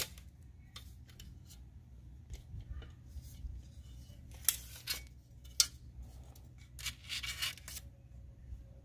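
Light handling noises from hands working a tape measure, tape and a plastic door sill guard: a few sharp clicks and short scratchy rustles.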